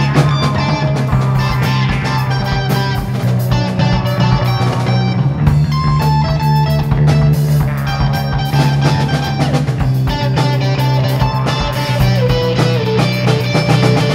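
Instrumental rock band recording: electric guitar playing over bass, drums and ARP synthesizer, with regular drum hits and a steady low drone underneath.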